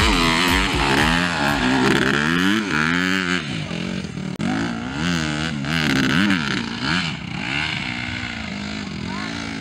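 Motocross dirt bike engine revving hard on and off the throttle, its pitch rising and falling again and again through the turns, with a brief break just over four seconds in.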